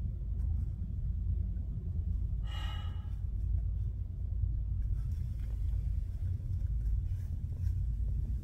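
Steady low rumble of a car ferry underway, with one brief high-pitched cry about two and a half seconds in.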